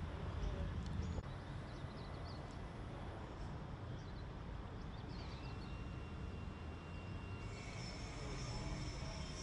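Roadside outdoor ambience: a steady low rumble with a few faint bird chirps, and a high insect buzz that comes in near the end.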